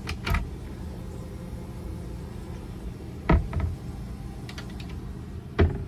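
A wooden cabinet door is handled: a knock as it is opened, another in the middle and one near the end, over a steady low hum in the cabin.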